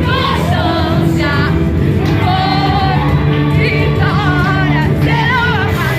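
Gospel worship song playing, with voices singing long wavering notes over sustained band accompaniment.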